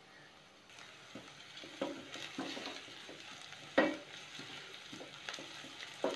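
Chopped shallots frying in oil in a stainless steel pan: a soft sizzle, with a wooden spatula scraping and knocking against the pan as they are stirred. One knock past the middle is louder than the rest.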